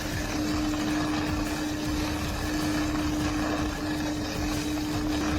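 Heavy machinery running steadily: an engine-driven machine gives a constant hum over a rough rumble, with no change in load.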